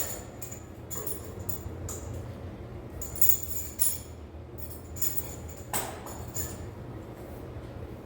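Steel weight plates on a barbell loaded to 315 lb clinking and jingling as the bar is taken out and squatted, a series of sharp, irregular metallic clinks. A steady low hum of fans runs underneath.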